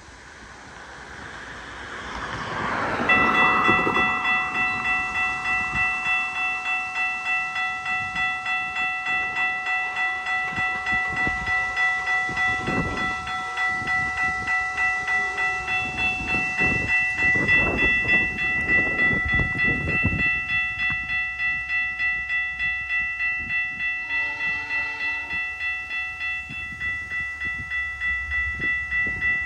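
A locomotive's Nathan P3 air horn sounds a long, steady chord starting about three seconds in, over the rumble of the passing train, whose wheels keep up a regular rhythmic beat.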